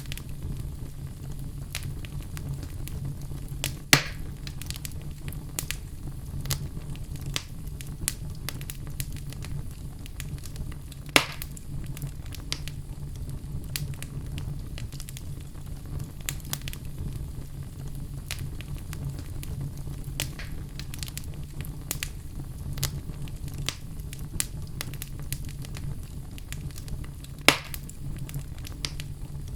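Wood fire in a fireplace crackling: a steady low rumble of flames with many scattered small snaps and three louder pops.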